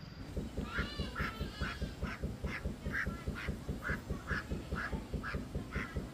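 Ducks quacking over and over in a steady run, about two to three calls a second.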